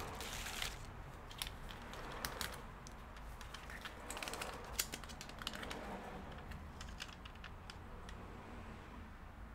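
Scattered light clicks and taps as small laptop parts are handled during disassembly, over a steady low hum.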